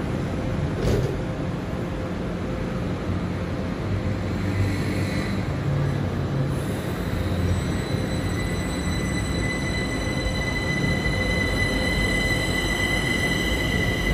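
Kaohsiung MRT Siemens electric metro train starting to pull out of the station: a low rumble, then from about halfway several high steady whining tones from its electric traction drive come in and grow louder as it gathers speed.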